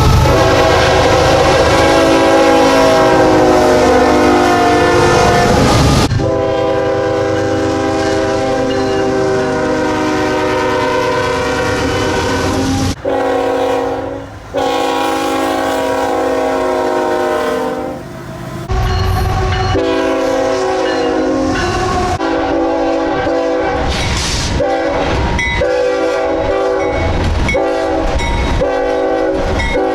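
Nathan Airchime K5HL five-chime locomotive air horns sounding a series of blasts as one horn clip cuts to the next. The first several seconds hold long, steady blasts, and the later part holds a run of shorter blasts with gaps between them.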